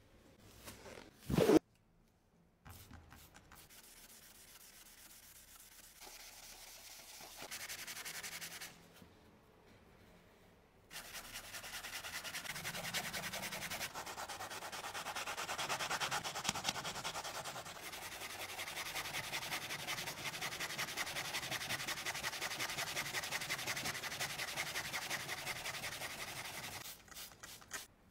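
A sharp knock about a second and a half in, then the blade of a straight razor being rubbed and sanded by hand with fast back-and-forth strokes, scrubbing off rust.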